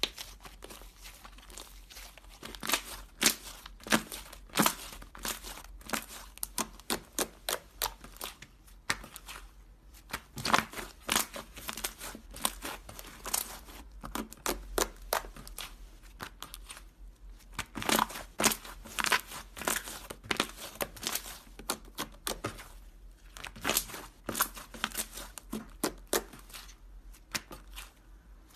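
Thick white slime being stretched, folded and pressed by hand, giving off dense runs of small crackling clicks and pops, in spells of a few seconds with quieter gaps between.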